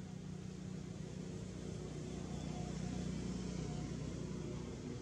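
Low, steady engine hum that swells in the middle and eases off near the end.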